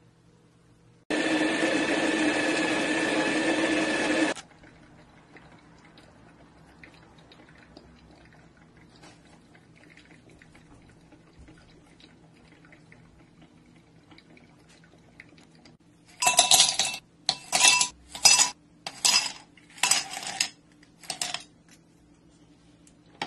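A small electric motor runs steadily for about three seconds and stops. Later, ice cubes are dropped into a glass tumbler, six quick clinking clatters.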